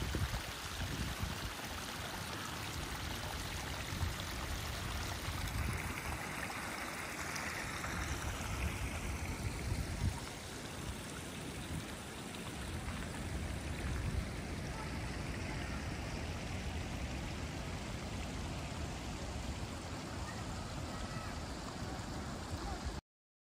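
Small woodland stream trickling steadily over a little drop, over a low, uneven rumble.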